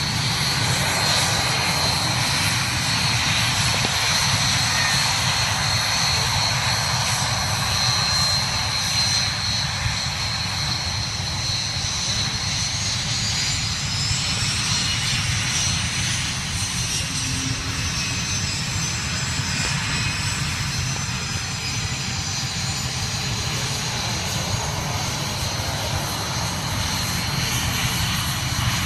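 Several BAE Hawk T1 jets' turbofan engines running with a steady high whine as they line up and roll for takeoff. Around the middle, one whine glides up in pitch and back down.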